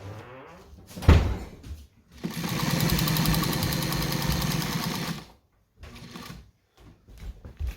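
A sharp knock about a second in, then a New Home Paragon class 15 straight-stitch sewing machine runs fast and evenly for about three seconds and stops suddenly.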